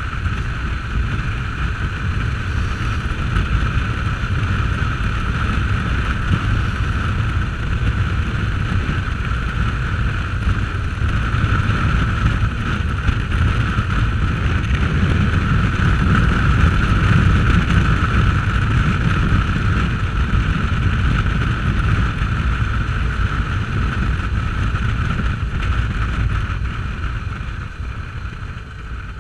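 Motorcycle riding at highway speed: steady wind rush on the bike-mounted camera's microphone over the running engine, with a steady high whine throughout. It swells slightly midway and eases near the end.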